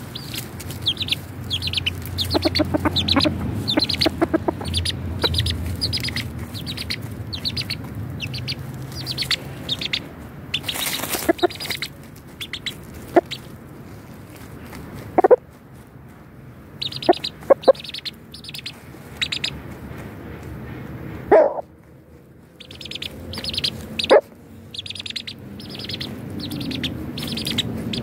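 Chickens clucking, with a few sharp, louder clucks in the second half, over a run of short high chirps several a second. Rustling of birds moving in dirt and dry leaves close by.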